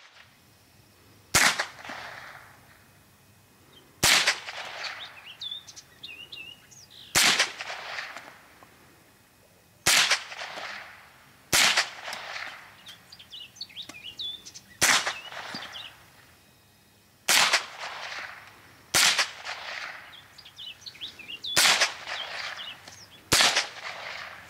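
Ruger 10/22 semi-automatic .22 LR rifle firing single, deliberate shots, about ten in all, one and a half to three seconds apart, each trailing off over about a second.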